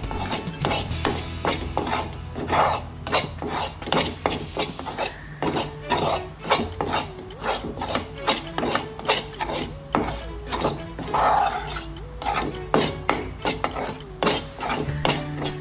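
Metal slotted spatula scraping and stirring wheat flour roasting in ghee in a dark frying pan, in quick repeated strokes, about two to three a second.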